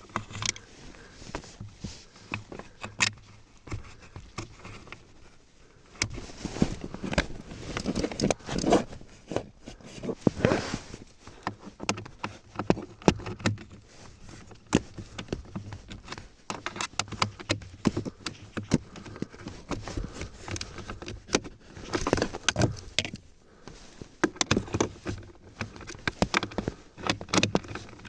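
Irregular clicks, knocks, scrapes and rattles of hands and tools working a heater blower motor and its screws into place under a car's dashboard.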